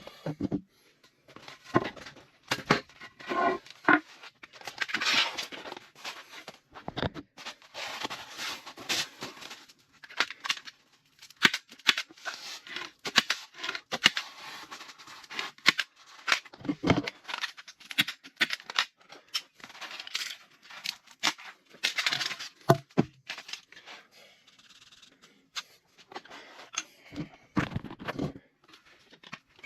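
Irregular hand work with building materials in a small room: rustling and scraping, tearing-like sounds and scattered knocks and clicks, with no steady machine running.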